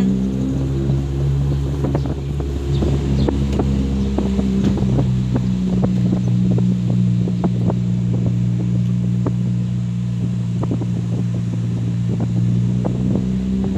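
Vehicle engine running steadily with a low, even hum, heard from inside a moving car, with scattered small clicks and rattles.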